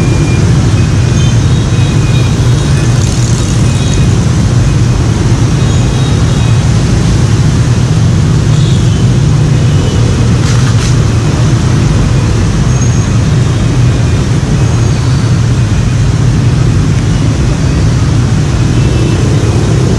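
Steady, loud street traffic noise, mostly motorbikes and scooters passing on a busy road.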